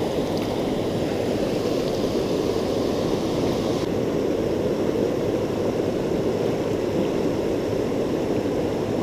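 Fast-flowing river water rushing steadily over shallow rapids, an even hiss with no breaks.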